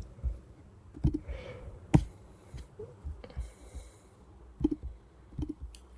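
A few separate sharp computer mouse clicks, the loudest about two seconds in.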